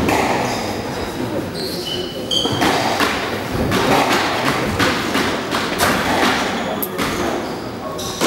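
Thuds of a squash ball and racket on the court, with a few short squeaks of shoes on the wooden floor.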